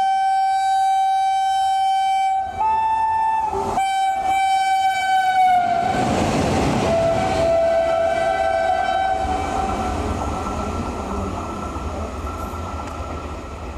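Two coupled WAP-5 electric locomotives running light sound a long air-horn blast. Its pitch steps up briefly a few seconds in, then drops lower as they pass close. The rush and wheel clatter of the passing locomotives takes over and fades away.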